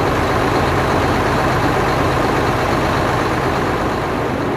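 Sound effect of a heavy locomotive engine running with a steady low rumble, easing off near the end.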